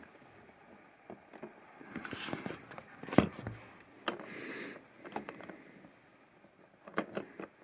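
Plastic LEGO pieces and minifigures being handled and moved about on a built set: a few sharp clicks, with soft rubbing and rustling between them.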